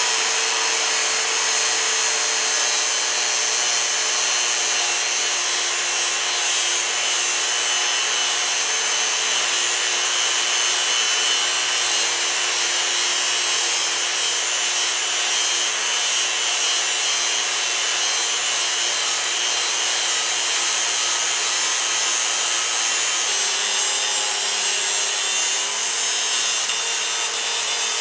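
Angle grinder with a cut-off wheel cutting through a steel knife blank: a steady, loud, hissing grind over the motor's whine. About three-quarters of the way through, the motor's note drops slightly and wavers.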